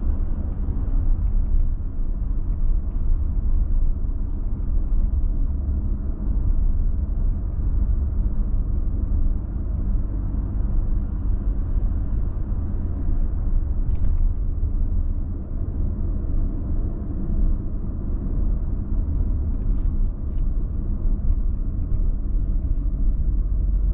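Steady low road and tyre rumble with engine noise inside a moving Mazda's cabin.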